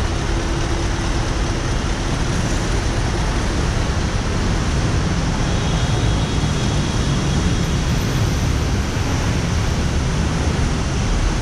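Heavy stop-and-go road traffic: a steady low rumble of car and truck engines mixed with a Honda ADV 150 scooter's single-cylinder engine running at a crawl.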